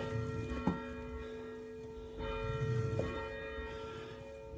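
Church bell rung by pulling its rope, ringing with several steady tones held throughout. Two faint knocks come through, about a second in and again near three seconds.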